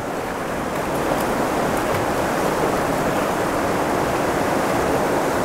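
Fast-flowing river rushing through rapids: a steady rush of water.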